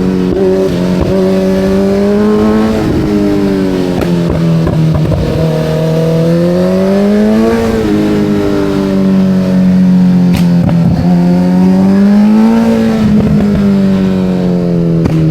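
Kawasaki Z900's inline-four engine under way, its pitch climbing and falling as the throttle is worked, with peaks about halfway through and again near the end.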